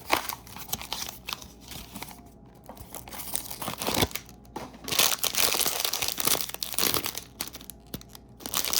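Blind-box packaging being crinkled and torn open by hand: irregular bursts of crinkling and tearing, sparse at first and busiest in the second half.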